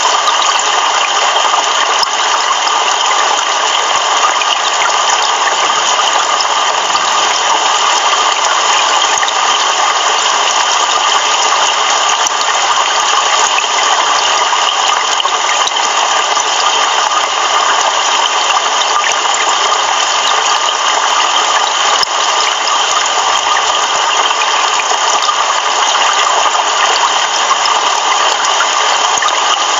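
Heavy rain pouring steadily, a dense, even hiss of many drops.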